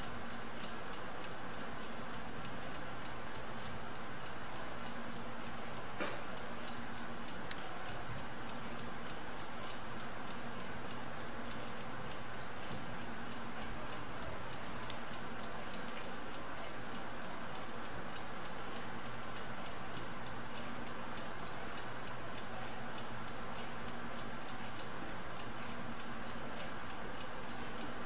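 Mechanical laboratory stopclock running, its movement ticking in a steady, even, fast rhythm.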